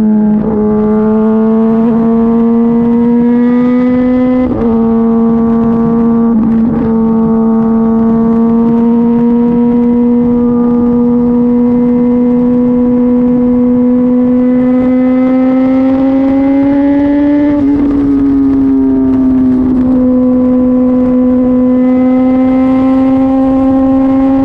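Kawasaki ZX-10RR's inline-four engine running through an Arrow exhaust with the baffle (dB killer) removed, ridden at a steady cruise. It makes a loud, steady drone whose pitch rises slowly. The drone briefly drops about four and a half and seven seconds in, and again after about eighteen seconds before it settles.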